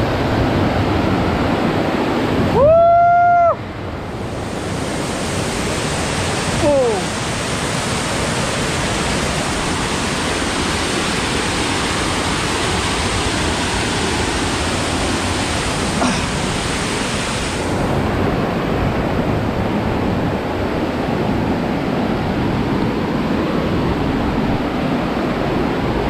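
Steady rush of water from a waterfall. About three seconds in, a loud held tone rises at its start and lasts about a second, and a short falling call follows a few seconds later.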